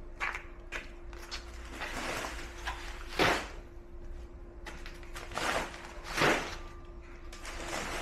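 Heavy 50-pound sacks of rock being hefted off a pallet and dropped into a steel loader bucket: several rough, rustling thuds, the loudest about three seconds in and two more around five and a half and six seconds in. A faint steady hum runs underneath.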